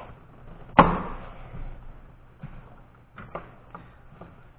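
A sharp knock about a second in, then a few lighter clicks and taps: plastic and rubber engine-bay parts, the crankcase vent tube among them, being worked loose by gloved hands on a 6.0L Powerstroke diesel.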